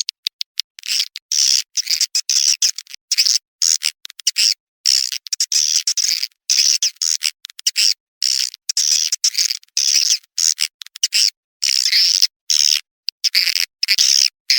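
Swiftlet calls: rapid, high-pitched chirping twitters in short bursts that cut in and out abruptly with dead silence between them. It is an edited swiftlet lure-call recording, played to draw swiftlets into a nesting house.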